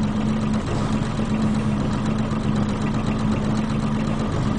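An engine running steadily at idle, a low even hum with a held tone.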